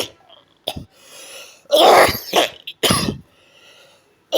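A person coughing in a fit: a short cough, a breath drawn in, then a longer run of coughs and one more short cough.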